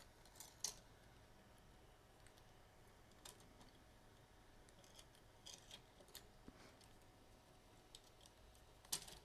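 Faint, scattered light clicks of 3D-printed plastic parts being handled, as articulated sloth figures are hooked onto a printed tree. The clicks come one or two at a time, with a louder double click near the end.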